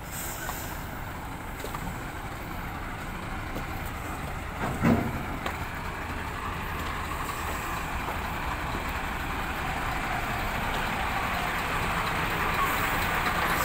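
Heavy diesel trucks idling, a steady low rumble that grows slowly louder toward the end, with one brief knock about five seconds in.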